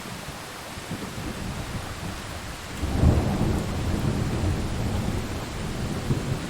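Steady heavy rain, with a deep roll of thunder that swells about halfway through and keeps rumbling under the rain.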